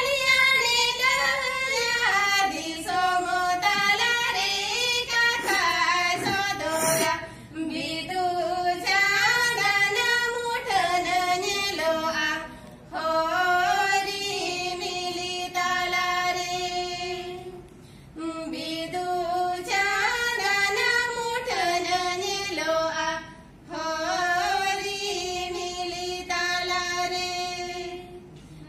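Two women singing a song together without accompaniment, in phrases of about five seconds with short pauses for breath between them.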